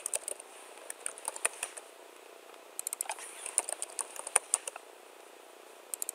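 Computer keyboard typing in quick runs of keystrokes with short pauses between them, stopping a little over a second before the end.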